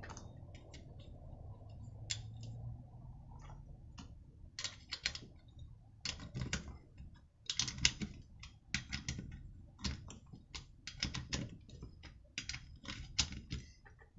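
Metal wrench clicking and clinking in quick irregular runs against a nut and a two-stroke brushcutter's crankcase as the nut holding the starter cup on the crankshaft is tightened. The clicks are sparse at first and come thick and fast from about four seconds in.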